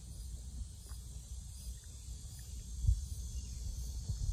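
Outdoor ambience: steady high insect chirring over a low rumble, with a single dull thump about three seconds in.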